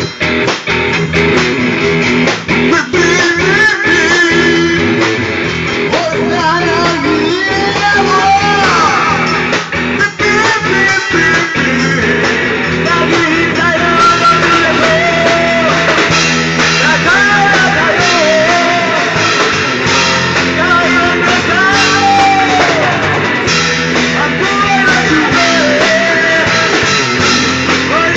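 Rock song with a singing voice over guitar and drums, playing throughout.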